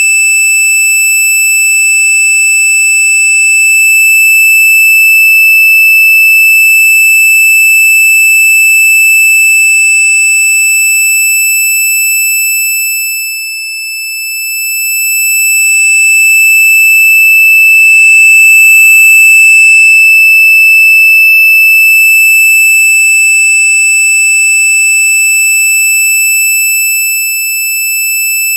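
Very loud, steady, high-pitched electronic tone, a single unchanging pitch with shrill overtones, played as an annoying-sound effect. It dips briefly in loudness about halfway through, then comes back at full strength.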